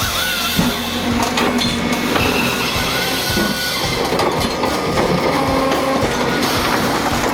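Wood-processing machinery clattering, with many irregular knocks and cracks.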